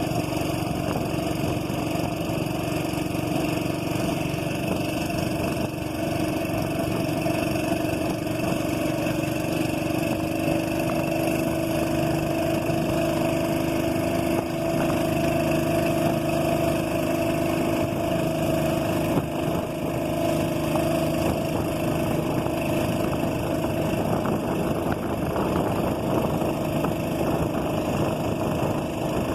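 A boat engine running steadily at an even speed, its pitch drifting only slightly.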